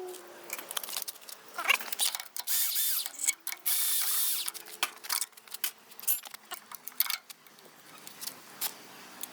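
Metal clinks and knocks of hand tools and parts while a Hangkai 6.0 outboard motor is taken apart, with a couple of seconds of steady rushing noise near the middle.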